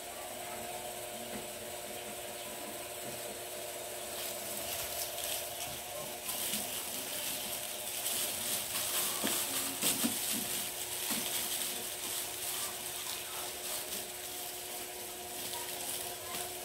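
Clear plastic film wrapping crinkling and rustling as hands pick at it and pull it open. It starts about four seconds in and is busiest in the middle.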